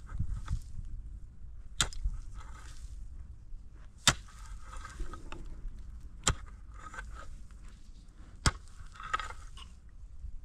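Sharp blows of a hand tool struck at a steady pace, four in all, about one every two seconds, with scraping and rustling between them.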